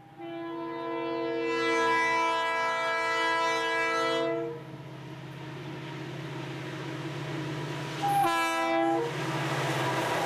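Approaching Conrail diesel freight locomotive sounding its multi-note air horn: one long blast, then after a few seconds of rising engine and rail rumble a short blast about eight seconds in, the pattern of a horn sounded for a road crossing. A low steady diesel hum runs underneath.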